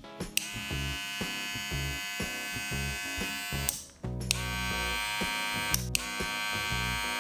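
Cordless hair clipper with its housing opened, running with a steady motor buzz. It cuts off just before the four-second mark and starts up again a moment later.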